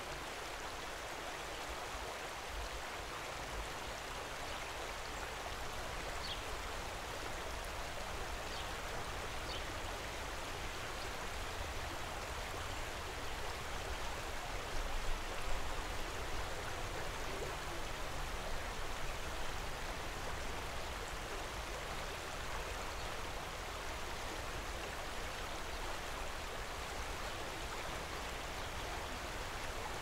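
Steady rush of water from a small waterfall pouring over rock ledges into a stream, an even, unbroken splashing hiss.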